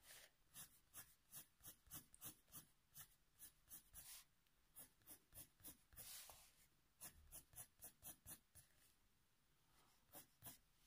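Faber-Castell Polychromos coloured pencil hatching on paper: faint, quick scratchy strokes, several a second, breaking off briefly near the end.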